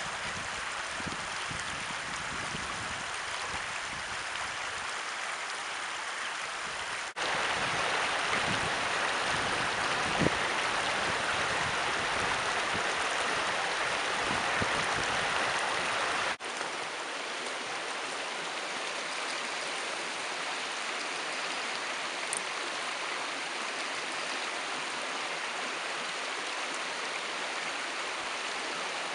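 Stream water running steadily over rocks. Sudden cuts about seven and sixteen seconds in mark a louder stretch of flowing water in the middle.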